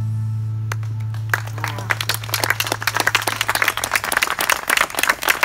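The last chord of an acoustic band ringing out, with a low upright bass note held under it until it fades about four seconds in. Audience applause breaks in about a second and a half in and builds.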